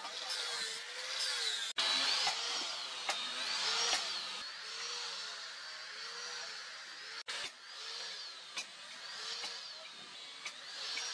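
Angle grinder with a sanding disc grinding across the flat steel face of a leaf-spring cleaver blade. It gives a steady gritty abrasive hiss over a motor whine that rises and falls in pitch about once a second as the disc is pressed on and eased off.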